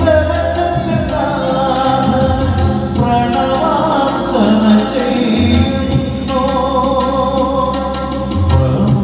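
Live band music: a man singing a Malayalam song over keyboard, bass and electronic percussion played with sticks on a drum pad.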